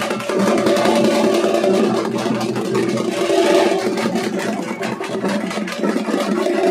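Procession drums, among them a big bass drum, beating in quick strikes over a steady engine drone.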